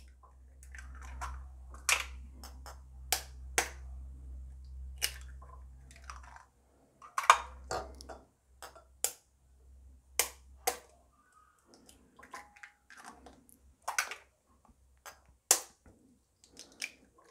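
Eggshells being cracked with a steel spoon and broken open over a glass bowl: irregular sharp taps, cracks and clicks, some loud, some faint. A low hum runs under the first six seconds or so, then stops.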